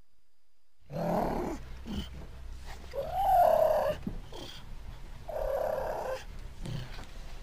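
Mountain lion (cougar) vocalizing: a series of short cat calls starting about a second in, the loudest a rising-then-falling cry about three seconds in.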